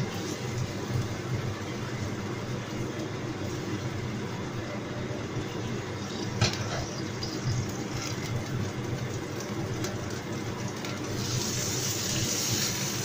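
Stir-frying in a wok over a gas burner: a steady low rumble with a wooden spatula scraping, and one sharp knock about six seconds in. Near the end a louder hissing sizzle starts as sliced mushrooms go into the hot oil.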